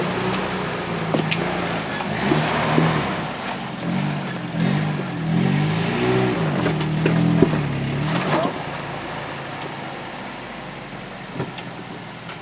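Off-road vehicle's engine revving in repeated surges as it tries to climb a rock ledge, with a few sharp knocks from the tires and body on rock. About eight seconds in it drops back to a quieter idle.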